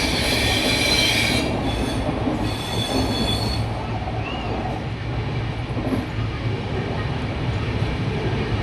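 Train running on the rails with a steady low rumble. A high, ringing squeal sounds over it for the first few seconds, breaks off briefly, and stops about three and a half seconds in.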